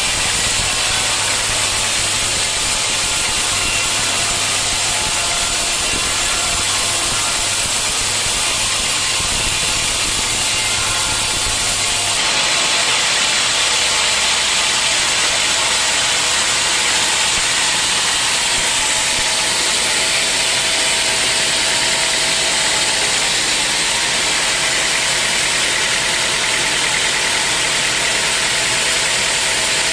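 Sawmill running and sawing teak logs: a steady, loud machine noise with a strong hiss. A low hum drops away about twelve seconds in.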